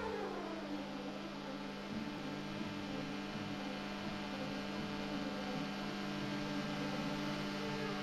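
Quicksilver MX ultralight's engine running steadily at climb power during takeoff, a constant drone at an even pitch.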